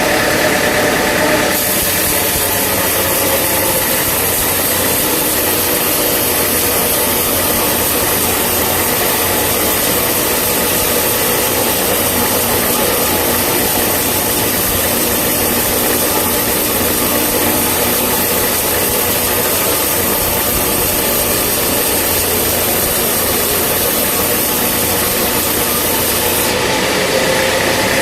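Sawmill saw and its driving engine running steadily; about a second and a half in, a high hiss sets in and lasts until shortly before the end, while the engine's tone sags slightly, as the saw cuts through a log under load.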